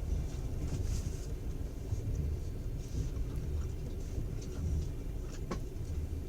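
Low, steady rumble of a passenger train running, heard from inside the carriage, with one short sharp click about five and a half seconds in.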